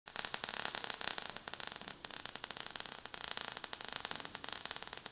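Sound effect of showering sparks: a steady crackling hiss made of many rapid crackles.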